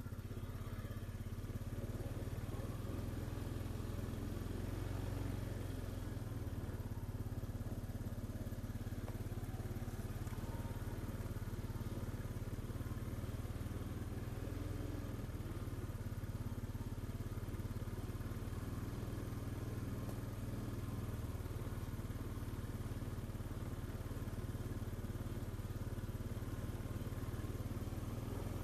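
A small vehicle engine running steadily at a low, even speed, with no revving or stops.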